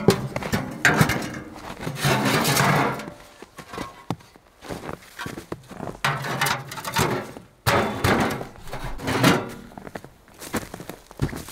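Sheet-metal stove with its long steel rods being handled and lifted: clanks, scrapes and rattles of metal in several clusters, with footsteps in snow as it is carried away near the end.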